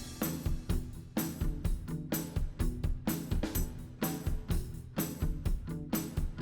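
Background music led by a drum kit playing a steady beat of about two strikes a second.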